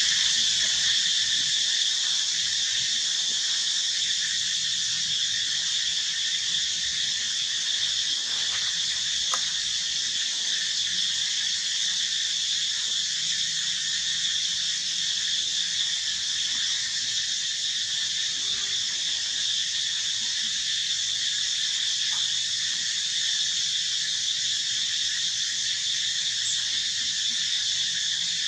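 Steady insect chorus: a dense, high, even drone with no breaks or changes.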